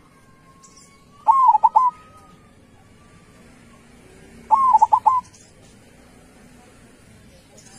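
Zebra dove (perkutut) singing its staccato cooing song: two short phrases of a few quick notes each, about three seconds apart.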